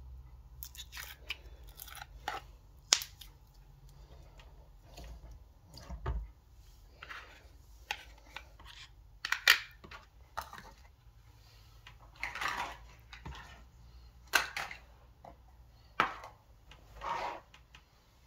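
Glossy glitter slime being scraped and plopped from a plastic tub into a metal muffin tin, giving short sticky squelches, with sharp clicks of plastic tubs and lids being handled. The sounds come one at a time, a few seconds apart.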